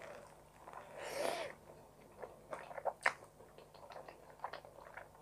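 Close-miked eating of creamy carbonara spaghetti: a slurp of noodles about a second in, then chewing with wet mouth smacks and clicks, the sharpest about three seconds in.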